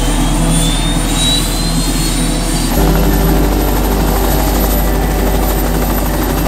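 Turbine helicopter running on the ground with its main rotor turning: a steady low drone, with a high whine rising in pitch over the first couple of seconds.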